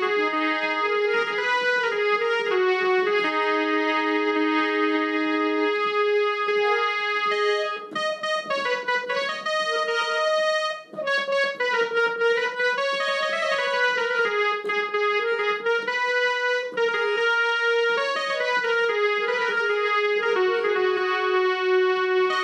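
Electronic harmonium played by hand: a melody of held notes that stay level, then a run of quicker, shorter notes about eight seconds in, before held notes return.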